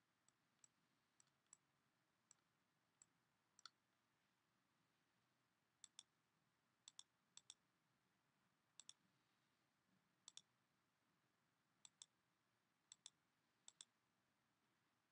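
Faint computer mouse clicks: single clicks every half second or so at first, then quick double clicks every second or two.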